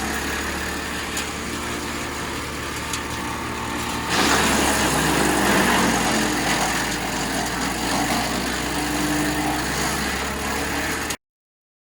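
A 15 hp wood chipper's engine running steadily. About four seconds in it gets louder and rougher, then it cuts off abruptly near the end.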